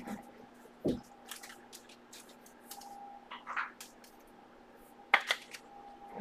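Trading cards being handled and set down on a table: a soft thump about a second in, light rustling, and a few sharp clicks near the end, over a faint steady hum.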